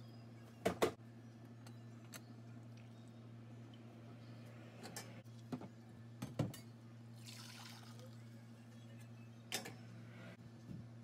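Stainless-steel kitchenware knocking and clinking as freshly strained fish broth is handled, the loudest pair of knocks about a second in, with a brief rush of liquid past the middle. A steady low hum runs underneath.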